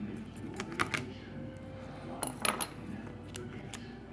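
Small metallic clicks and taps as repair tools and the iPhone 6 Plus are handled on the work surface: a few light clicks about a second in, then a louder cluster of clinks just past the middle.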